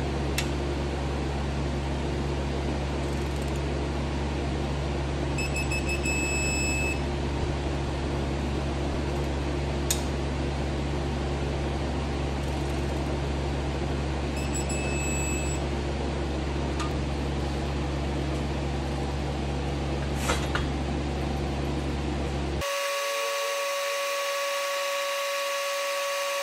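Electronic torque-angle gauge beeping in two quick runs of high beeps as engine bolts being angle-torqued reach their 90-degree mark, with a few light clicks from the wrench, over a steady electrical hum. Near the end the hum changes abruptly to a different, higher steady tone.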